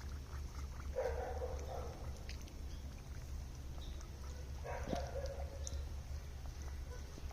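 Duck calling twice, short nasal calls about a second in and again near five seconds, over a steady low rumble.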